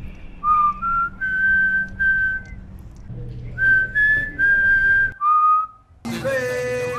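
A person whistling a slow tune of about eight clear held notes, with a short break about three seconds in and a lower closing note.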